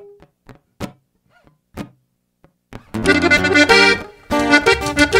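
A few scattered sharp knocks, then about three seconds in a band strikes up with an accordion playing sustained melody notes over a low accompaniment.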